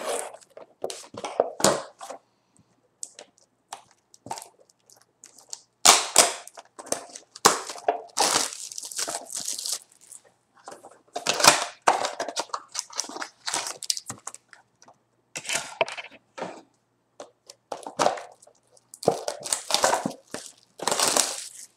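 Trading-card blaster box being torn open and foil card packs crinkling as they are handled: irregular bursts of tearing and crinkling.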